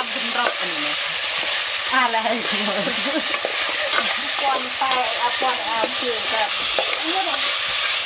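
Food sizzling as it is stir-fried in a hot pan: a steady frying hiss.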